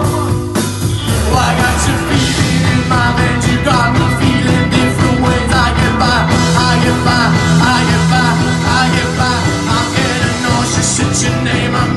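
A rock song played live by a band, loud and continuous, with a steady bass line and drums under a bending melodic line on top.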